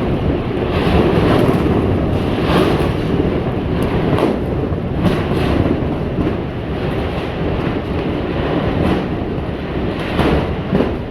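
Hurricane-force wind of about 120 km/h battering a metal barn: a loud, continuous rumble with repeated bangs and rattles from the sheet-metal building.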